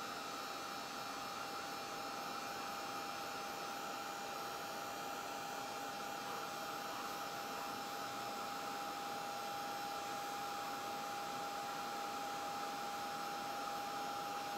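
Ranger craft heat gun running steadily, blowing hot air to cure a piece of Quick Cure Clay: an even rushing hiss with a constant whine.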